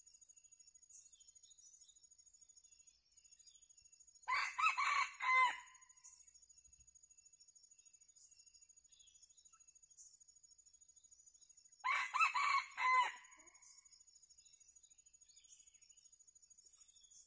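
Red junglefowl rooster crowing twice, about eight seconds apart. Each is a short crow of several quick pitched notes.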